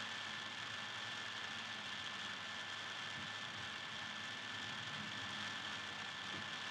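Steady background hiss with a faint, thin high whine held at one pitch: room tone or recording noise.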